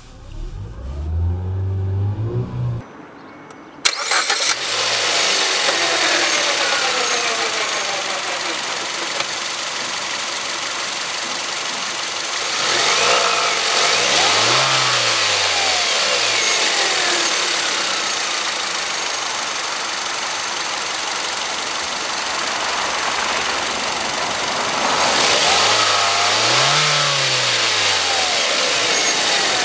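The 2015 Kia Ceed's engine running and being revved twice, each rev rising and falling over about three seconds: once about halfway through and again near the end. It opens with a short engine note and a brief lull, then the noise jumps suddenly to a loud, steady level about four seconds in.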